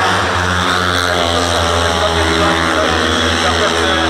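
Speedway motorcycle engines, 500 cc single-cylinder methanol-burning, running loudly with a fairly steady, slightly wavering pitch.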